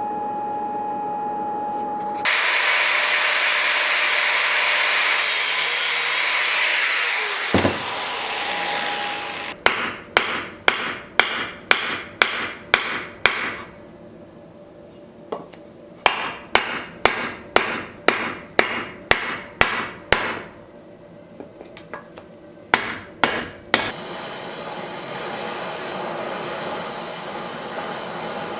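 Hammer blows on a knife workpiece in three runs of sharp, ringing strikes at about two a second. They come between stretches of a power tool running, which winds down just before the first run and starts again near the end.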